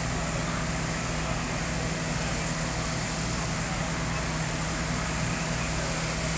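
Fire engines' diesel engines running steadily, a constant low hum with no change in level.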